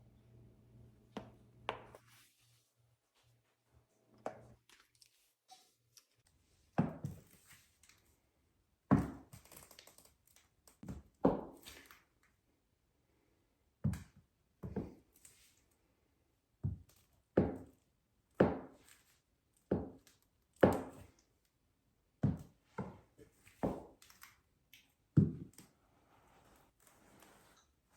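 High-heeled shoes walking on a hard floor: a run of sharp heel knocks, irregularly spaced at about one a second, each with a short ring.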